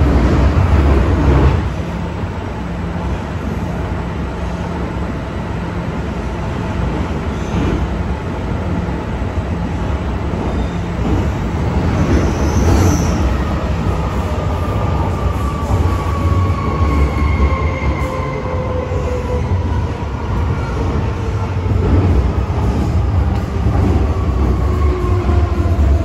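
MTR Kwun Tong Line M-train's traction motors whining over a steady heavy rumble of wheels on rail. From about halfway, the whine falls steadily in pitch as the train slows. The rumble is louder in the first second or so.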